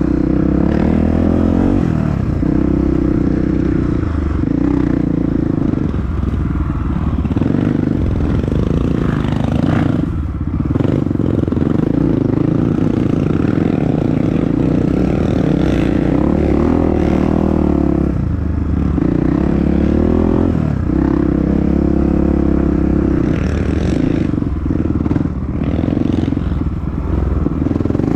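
Honda CRF dirt bike engine running on an off-road trail, its pitch rising and falling as the throttle is opened and closed, with the bike rattling and clattering over rough ground.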